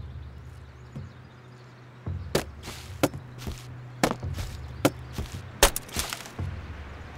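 Axe splitting firewood on a chopping block: a quick series of sharp strikes and cracks starting about two seconds in, over a low steady drone.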